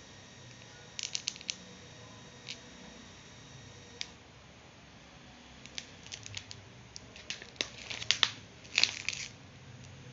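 A plastic food pouch crinkling as it is handled and turned. There are scattered sharp crackles, with a quick run of them about a second in and the loudest, densest cluster in the last few seconds.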